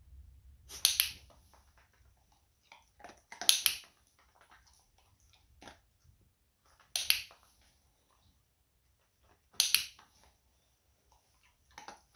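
A dog-training clicker clicks four times, a few seconds apart, marking the dog's head turns during shaping. Softer crunching and clicking between the clicks come from the dog eating its treats.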